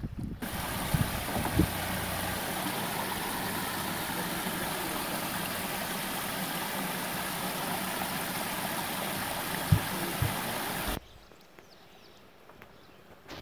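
Water rushing over a series of small rock-ledge cascades, a steady even rush with a few brief low thuds. About eleven seconds in it cuts off abruptly to a much quieter outdoor background with faint ticks.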